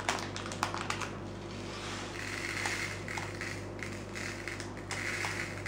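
Silicone pastry brush tapping against a ceramic mug and being wiped along its rim to shed egg yolk. A run of light clicks comes first, then several short, soft scrapes.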